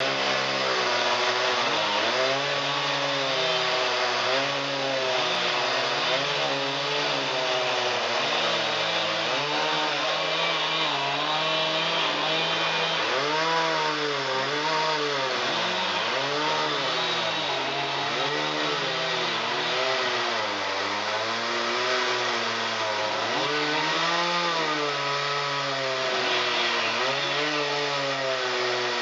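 Chainsaw running continuously while cutting a felled birch log into rounds, its engine pitch dipping and recovering every second or two as the chain bites into the wood and eases off.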